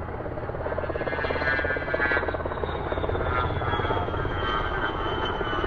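HH-60 Pave Hawk rescue helicopter flying by, its rotor blades chopping rapidly and steadily. A thin high whine slides slowly down in pitch over the second half.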